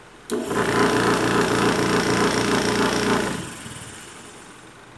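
Twin-tub washing machine wash motor switching on with a click, running with a steady hum for about three seconds, then losing power and winding down to a stop, as the wash timer switches it between its forward and reverse turns.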